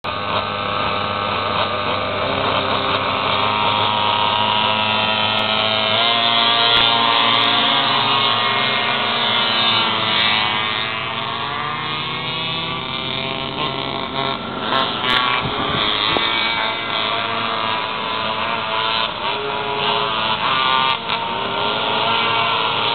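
A pack of pocketbikes' small two-stroke engines buzzing and revving together. Many pitches rise and fall at once as the bikes race round the course.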